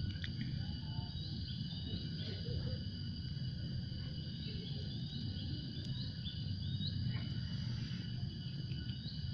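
A steady high-pitched insect drone with short, repeated rising bird chirps over it, on top of a continuous low rumble.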